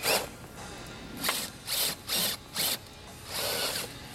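Radio-controlled rock crawler's small electric motor and geared drivetrain whirring in a series of short throttle bursts as it climbs over rocks.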